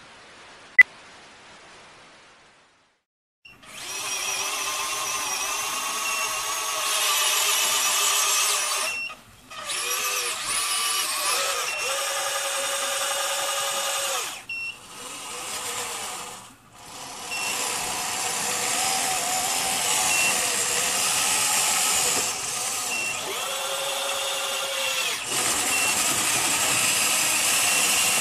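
Electric drive motors and gearboxes of an RC-converted Bruder Caterpillar D11 model bulldozer whining as it drives, the pitch shifting with speed. It stops and starts again several times. There is a short beep about a second in, and a few seconds of quiet before the motors start.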